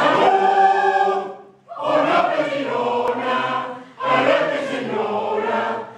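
Mixed choir of men's and women's voices singing a song, in three phrases of about two seconds each with brief breaks between them.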